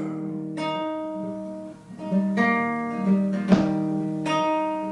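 Solo nylon-string classical guitar with a capo, played without singing: a run of picked chords with ringing notes and a sharp strum about three and a half seconds in.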